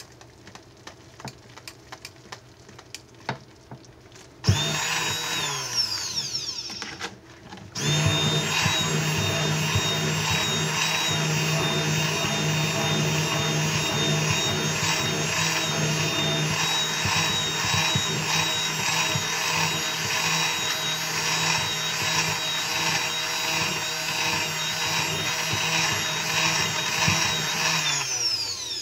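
Electric stick (immersion) blender running in thick soap batter. After a few seconds of faint taps it starts, winds down briefly about seven seconds in, then starts again and runs steadily until it winds down near the end.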